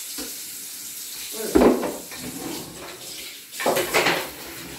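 Kitchen sink tap running while a plastic chopping board is rinsed. There is a sharp knock against the sink about one and a half seconds in, and a louder rush of splashing water near the end.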